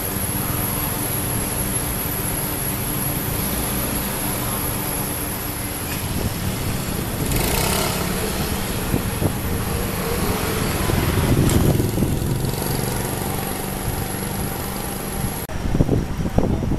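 An engine running steadily at a constant speed, with a short burst of hiss about seven seconds in. Near the end the sound turns uneven, with a few thumps.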